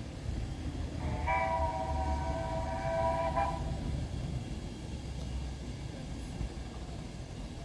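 No.6 Samson, a 15-inch-gauge steam locomotive, sounding its whistle in one blast of about two seconds, several notes at once, over a low steady rumble.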